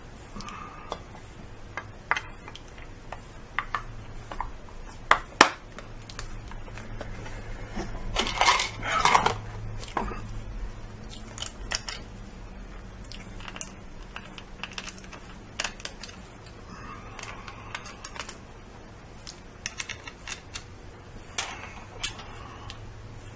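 Scattered small clicks and knocks of a plastic charger case and its parts being handled and fitted together, with a brief denser rattling clatter about eight to ten seconds in.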